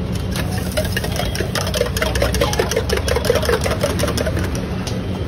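Metal spoon clinking rapidly against the inside of a steel mug as a liquid mixture is stirred: a fast run of ticks with a light metallic ring, stopping near the end, over a steady low hum.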